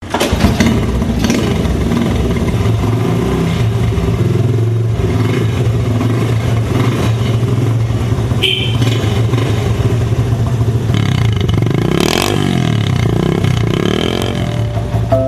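Vintage small motorbike kick-started, its engine catching at once and then running steadily. Near the end the throttle is blipped several times, the engine note rising and falling.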